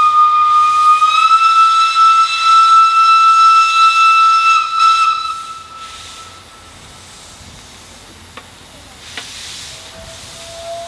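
Steam locomotive whistle blowing one long steady blast that steps up slightly in pitch about a second in and cuts off about five seconds in, leaving the hiss of escaping steam. Just before the end a second, lower-pitched whistle begins.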